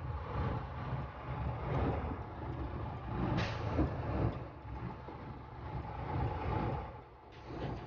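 Vehicle driving slowly over a rough, wet dirt road, heard from inside the cab: a low engine and tyre rumble with rattles and knocks from the bumps, and a sharper clatter about three and a half seconds in.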